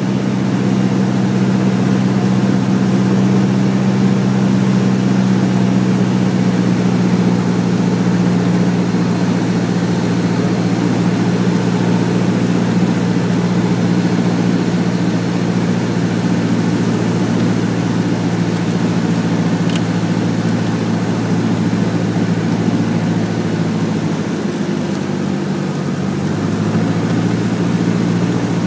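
Single-engine Cessna's piston engine and propeller droning steadily, heard inside the cockpit during the landing approach. The drone sags a little in loudness and pitch several seconds before the end as power comes back for touchdown.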